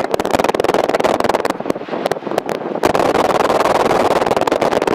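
Single-engine piston airplane's engine and propeller running at low taxi power, heard inside the cockpit as a steady, rapidly pulsing drone. It eases off briefly about two seconds in and comes back up a little about a second later.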